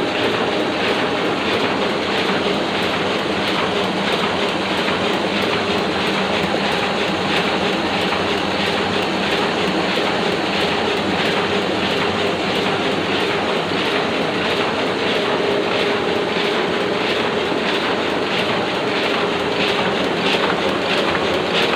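Oliver offset printing press running normally at its standard speed, a steady mechanical clatter with a fast, even beat from the press cycling.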